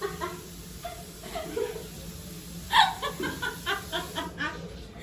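A person laughing: after some faint voice sounds, a laugh breaks out about three seconds in, a quick run of "ha" pulses about four a second that dies away near the end.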